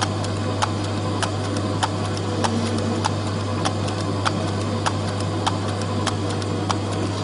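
Rotary suppository machine running: a steady low hum with a sharp click repeating evenly, a little under twice a second.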